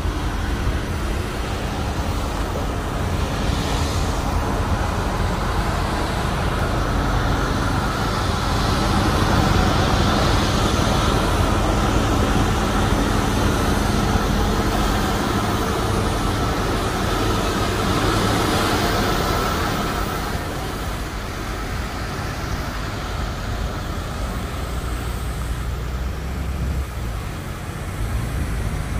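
Heavy tractor-trailer trucks running under load up a steep mountain grade: a steady engine drone with road noise. It swells through the middle and eases off slightly after about twenty seconds.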